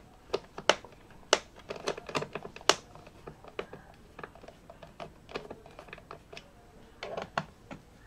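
Irregular sharp plastic clicks and taps as a small tool works at the corner of a Lenovo ThinkPad E14 Gen 4's plastic bottom cover. A dense run of clicks comes in the first three seconds, scattered ones follow, and a short cluster comes near the end.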